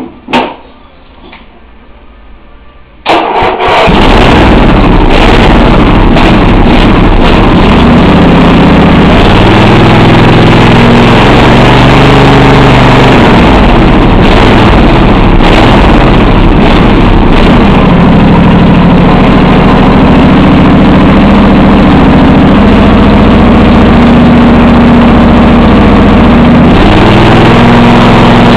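Craftsman II riding mower engine catching about three seconds in after a few faint clicks, then running very loudly, its pitch rising and falling as the throttle is worked through a new foot pedal. The engine is not reaching full throttle because the pedal maxes out before the cable is fully pulled.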